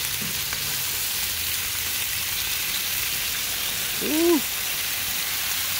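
Chicken, sausages and ribs sizzling on the grates of a gas grill as sauce is brushed on: a steady hiss. About four seconds in, a man gives a short hummed "mm" that rises and falls in pitch.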